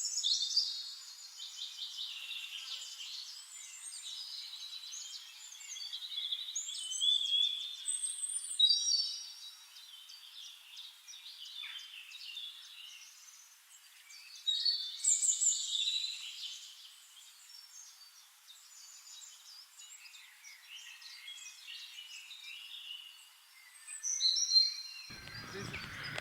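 Small birds chirping and singing, many short high-pitched calls overlapping, louder bursts about 7 to 9 seconds in and again about 15 seconds in.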